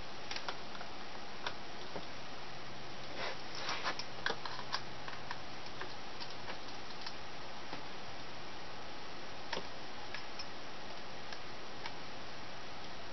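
Light, scattered clicks and taps of small laptop parts being handled during reassembly, with a quick cluster of them a few seconds in, over a steady hiss.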